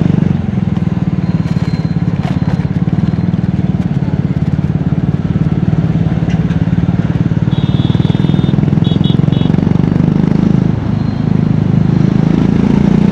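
Triumph Scrambler 400X's single-cylinder engine and exhaust running under way, a steady loud thumping note that eases off briefly twice as the throttle is rolled off. A high beeping sounds in short pieces near the middle.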